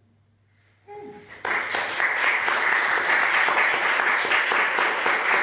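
An audience applauding at the end of a song, the clapping breaking out about a second and a half in after a moment of near silence. Just before it, a short pitched call is heard.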